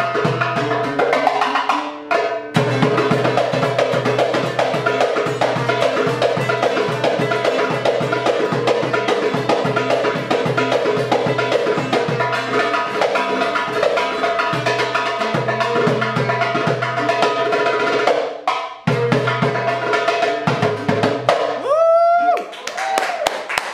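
Algerian chaabi duet: a derbouka (goblet drum) beating the berwali rhythm in 6/8 under a steel-stringed Algerian mandol playing the melody. The music breaks off briefly twice, and near the end a short rising glide sounds as the piece closes.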